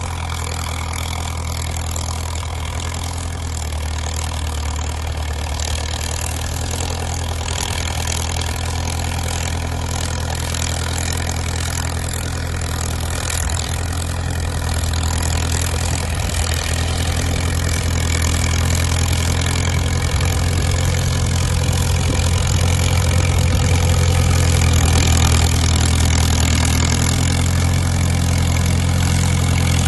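Caterpillar crawler dozer's diesel engine running steadily under load with a deep, even drone, slowly getting louder.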